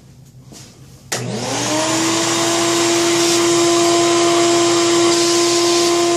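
A shop vac switches on about a second in, its motor whining up in pitch and settling into a loud, steady run, pulling air through a bucket-top cyclone dust separator.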